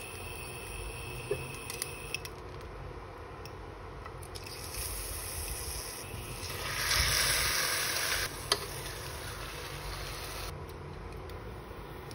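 Marinated chicken pieces laid into hot oil in a pot, sizzling steadily, with a louder surge of sizzling for a second or two a little past the middle. A few light clicks of metal tongs against the pot.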